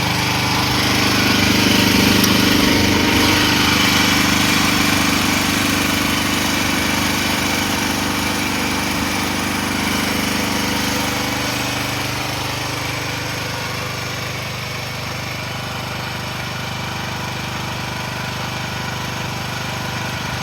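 Small engine of an AGT Industrial QH13R mini excavator running steadily. It is louder over roughly the first twelve seconds, then settles to a quieter, lower running sound.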